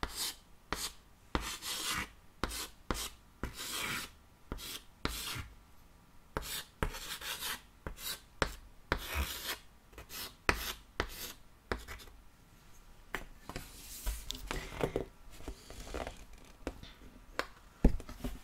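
White chalk writing on a small chalkboard close to the microphone: short, irregular scratching strokes one after another. A single sharp knock near the end is the loudest sound.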